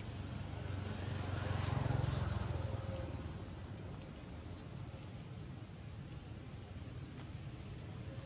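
An insect's steady high-pitched trill, coming in about three seconds in and sounding in three stretches, over a low outdoor rumble.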